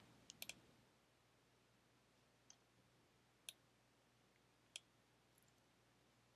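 Faint computer mouse clicks over near silence: a quick cluster of clicks near the start, then a few single clicks about a second apart.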